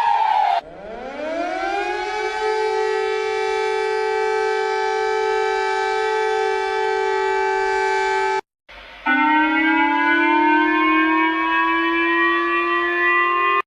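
Siren sound in an emergency alert: a loud siren winds up from a low pitch to a steady wail within about two seconds and holds it, then cuts off abruptly. A second siren tone starts a moment later and rises slowly in pitch.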